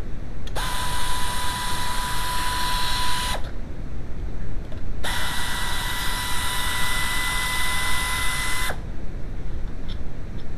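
Power ratchet spinning a bolt, run twice for about three seconds each time: a steady whine over a hiss that starts and stops abruptly.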